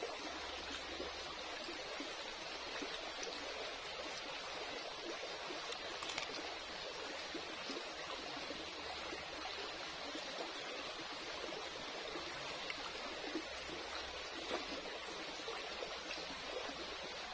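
Shallow rocky stream flowing, a steady babble of water over stones.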